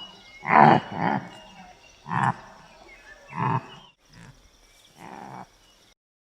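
Antelope calling: four short calls spaced about a second to a second and a half apart, the last one fainter.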